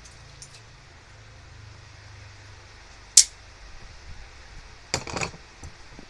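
Metal clinks of a garage door spring's steel hook and clip against perforated angle-iron hangers as the spring is hung: one sharp clink about three seconds in, then a quick rattle of several clinks near the end.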